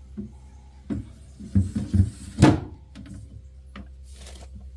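Knocks and clunks of a refrigerator shelf being shifted in the fridge, a run of thuds followed by one sharp knock about two and a half seconds in.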